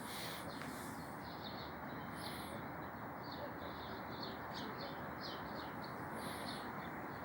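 Birds chirping: many short, high chirps, several a second, over a steady background hiss.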